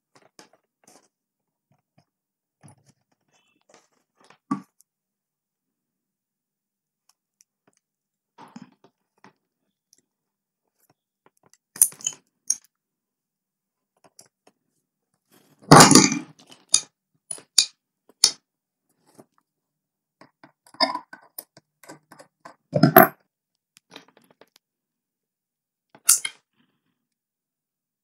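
Wire cutters working a green single-core electrical wire, cutting and stripping its insulation: scattered sharp clicks and crunches, the loudest about halfway and about four-fifths of the way through.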